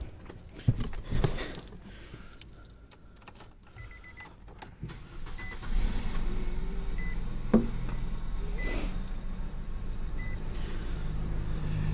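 Nissan Rogue engine started about six seconds in, then idling with a steady low hum, while a dashboard chime beeps about every second and a half. The engine still has a cylinder 3 misfire. Some light clicks come at the start.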